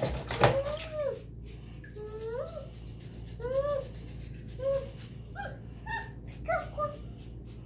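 A pet animal off-camera gives about seven short, high whining calls, each rising and falling in pitch, the later ones briefer. Small clicks and knocks from kitchen handling sound throughout, with a sharp knock about half a second in.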